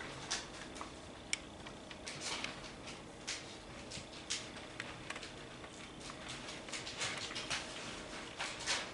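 Faint, irregular small clicks and ticks from an HO scale model train layout, plastic and metal parts of the cars and track tapping together.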